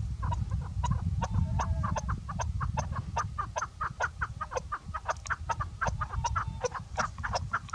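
Chukar partridge (chakor) calling in a rapid series of short clucking chuk notes, about four a second, growing faster and denser toward the end. A steady low rumble runs underneath.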